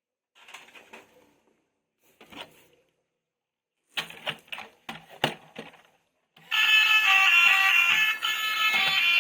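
Light handling noise and several sharp plastic clicks and knocks, then, about six and a half seconds in, a loud, high-pitched electronic beeping tune starts and keeps playing.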